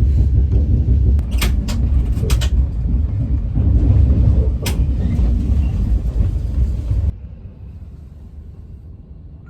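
Low, steady rumble of a vehicle in motion, with a few sharp clicks and rattles. It stops abruptly about seven seconds in, leaving a much quieter background.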